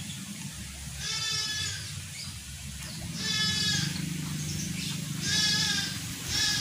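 An animal bleating: four separate calls, each under a second long.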